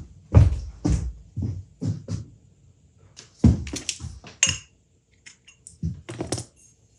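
Hard parts and tools being handled and set down: a string of irregular knocks and light clinks, quieter for a moment past the middle.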